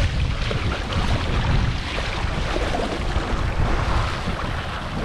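Wind buffeting the microphone over the rush and splash of water along a sailing canoe's hull as it moves fast through choppy water.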